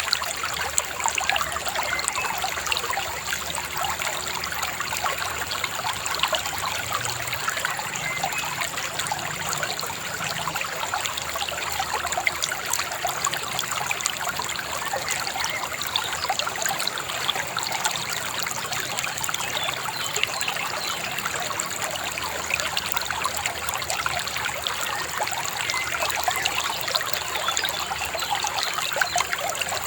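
Shallow river babbling and trickling over stones, a steady, even flow of water with no pauses.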